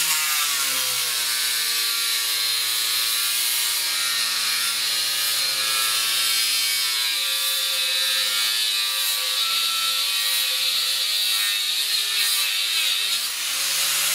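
Angle grinder running steadily with a double-layer cardboard disc in place of an abrasive wheel, the disc pressed into a wooden bar and cutting it by friction. Its motor whine sags in pitch as the disc bites and holds under load.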